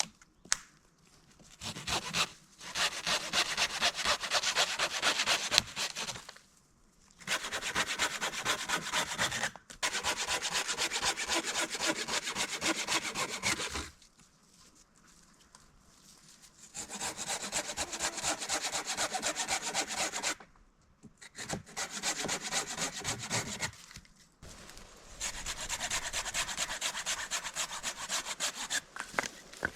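Hand saw cutting wood in six bouts of steady back-and-forth strokes, with short pauses between bouts.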